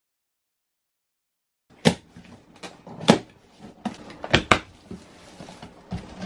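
Silence for nearly two seconds, then a cardboard box being opened and its packing handled: about seven sharp knocks and scrapes of cardboard and foam blocks, with light rustling between them.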